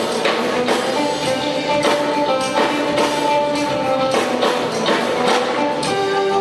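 Indian fusion rock band playing live: sustained pitched instrument notes over regular percussion strikes.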